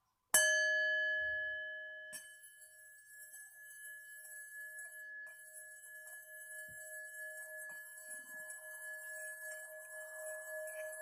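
Singing bowl struck once, ringing with two clear steady tones that die away. Then, after a light second touch, it is kept singing with a wavering, slowly swelling tone, as when a mallet is rubbed around the rim.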